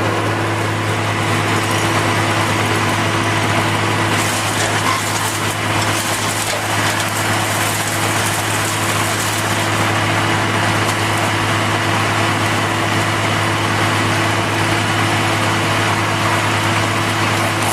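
An engine running steadily at a constant speed, with a little extra hissing noise from about four to seven seconds in.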